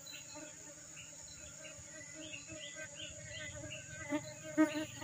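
Insects calling in the surrounding vegetation: a steady high drone with rapid, evenly repeated chirps over it. A couple of brief knocks near the end.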